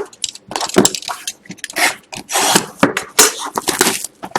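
A cardboard trading-card box being opened and handled: irregular scraping and rubbing strokes of cardboard against cardboard.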